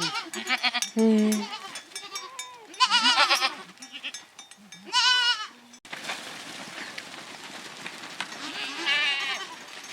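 Goats bleating: three loud, wavering bleats, about three seconds in, about five seconds in and again near the end, over scattered clicks and knocks.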